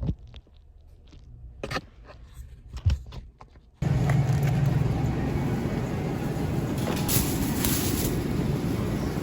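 A few light clicks and scrapes of packages being handled. About four seconds in, a cut to a steady low rumble of road and engine noise from inside a moving car.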